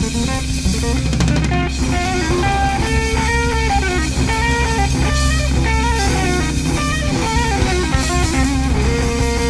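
Instrumental band recording: an electric guitar plays a lead melody that steps and glides between notes, over a drum kit and a steady low backing.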